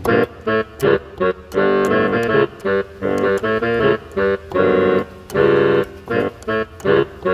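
Background music played on a keyboard, cutting in suddenly: short, bouncy chords separated by brief gaps, with a few longer held chords.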